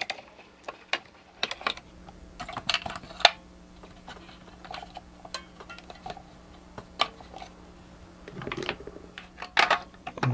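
Scattered plastic clicks and light knocks as the toy robot bank's white plastic housing and its answer drum are handled and fitted together, with a faint steady hum underneath.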